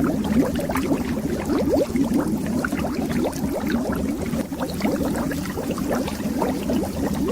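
Continuous stream of water bubbles heard underwater: many quick little rising blips and gurgles over a low, steady rumble.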